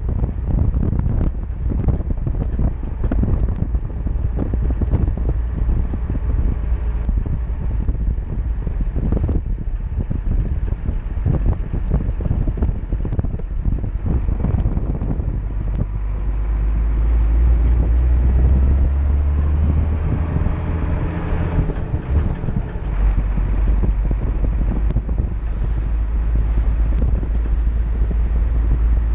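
Wind buffeting the microphone of a camera mounted on a moving classic Mercedes-Benz, over the car's engine running. In the second half the engine note grows louder, breaks off briefly and settles again.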